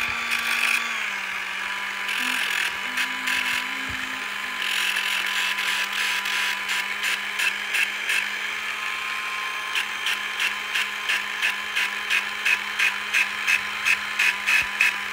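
Small right-angle grinder with a sanding disc running steadily, cleaning rust off the shaft of an RV furnace blower motor; its pitch drops slightly about a second in. In the last few seconds the disc scrapes the shaft in quick regular pulses, about three a second.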